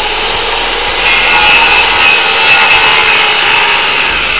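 Power saw cutting through wood in one steady, unbroken cut, its motor whining under the noise of the blade.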